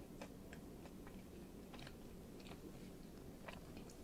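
Faint, close-miked chewing of a katsu sandwich, with small mouth clicks and crunches coming at irregular intervals.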